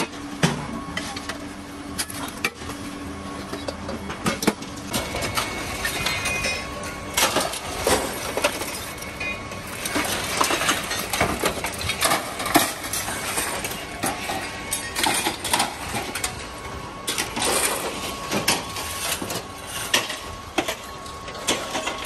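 Scrap metal clanking and clattering: irregular hits and clinks of metal pieces being hammered apart and tossed onto scrap piles.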